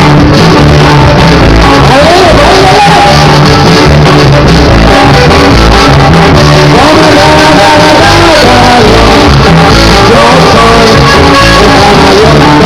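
Norteña music playing loudly, with singing over plucked strings and a steady bass beat.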